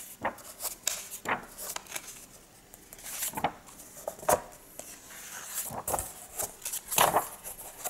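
Glossy pages of a comic-book trade paperback being turned and handled: a series of short paper rustles and flaps, with the loudest page turns about a second in, around three and a half and four seconds in, and near the end.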